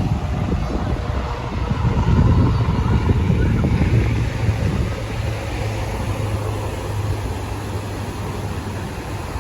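A baler at work, giving a steady low engine drone, with wind buffeting the microphone.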